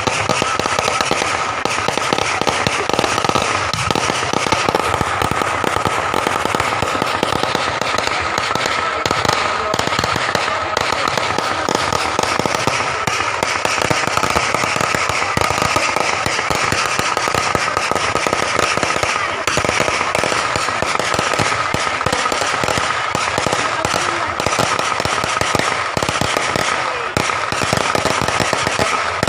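Fireworks and firecrackers going off in a dense, unbroken string of rapid crackling bangs, with a thin steady high tone running underneath.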